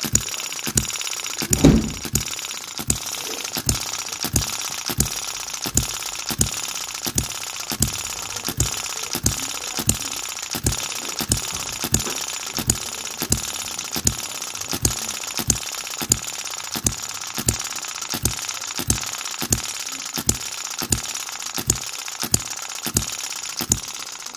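Microcosm M96 2cc hit-and-miss model engine running slowly: a steady mechanical whir with regular sharp pops, a little under two a second, and one louder thump about 2 s in. It runs quieter since its connecting-rod little end was hot-pressed, and slower for now, until wear lets it speed up and lengthen its miss cycle.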